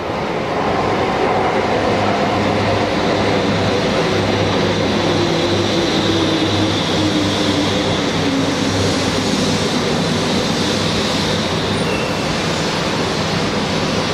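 200 Series Shinkansen, a 16-car H set, pulling into a station. The cars roll past with a loud, steady rumble, and a whine falls slowly in pitch as the train slows.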